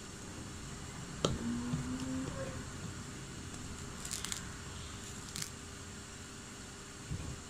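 Faint handling sounds of aari bead embroidery: a sharp click about a second in, then short crisp rattles about four and five seconds in as loose metal beads are picked from a plastic lid, over a steady background hum.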